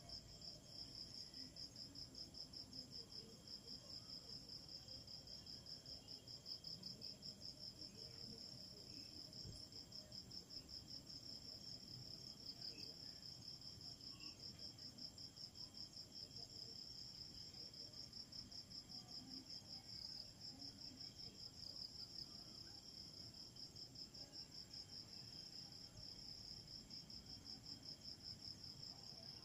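Crickets trilling: a faint, steady, high pulsing chorus that never lets up.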